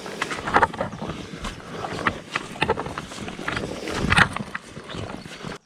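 Dog barking repeatedly from a distance, in short irregular barks over outdoor background noise.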